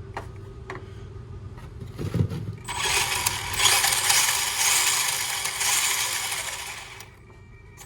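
Traxxas Mini E-Revo RC truck on Pro-Line Trencher tyres driving: a loud, noisy rush of tyres and drivetrain starting about three seconds in and dying away about a second before the end.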